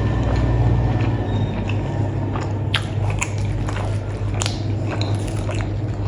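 A person chewing and biting food close to the microphone: irregular sharp mouth clicks, thickest in the second half, over a steady low hum.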